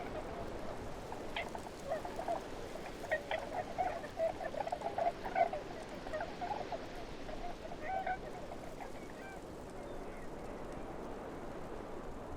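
Tundra ambience: a flurry of short, chattering bird calls, busiest a few seconds in and thinning out after about nine seconds, over a steady background hiss.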